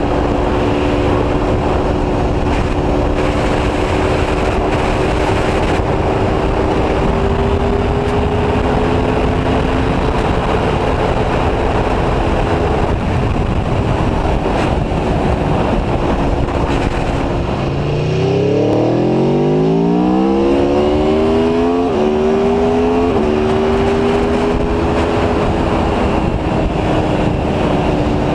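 Aprilia Tuono V4 1100 Factory's V4 engine running at a steady cruise under heavy wind noise. About 18 seconds in it accelerates, rising in pitch, with two quick drops as it shifts up, then settles back to a steady note.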